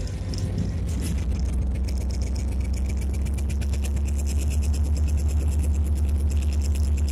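Diesel engine of an EMD SD24 locomotive, a turbocharged V16, running as heard from inside the cab as a steady low drone. About four seconds in it gets louder and takes on a rapid, regular pulse.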